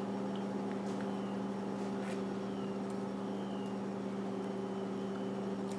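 A steady, low, even hum like a running appliance motor, with a few very faint clicks over it.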